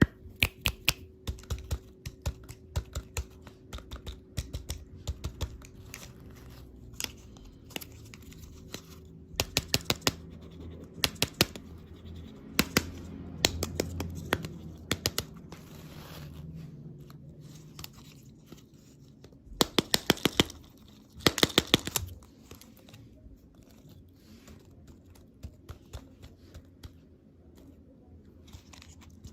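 Hands handling plastic candy packaging: runs of quick, sharp clicks and taps with some scratching and crinkling, in louder clusters about a third of the way in and again about two-thirds of the way in.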